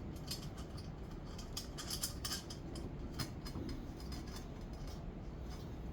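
Irregular small clicks and taps of a screw and pan-handle parts being handled and fitted to a frying pan.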